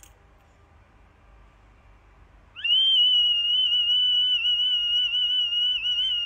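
A small metal whistle held in a golden retriever's mouth sounds. After a short quiet it slides quickly up into one long, steady, high-pitched tone that wavers a little.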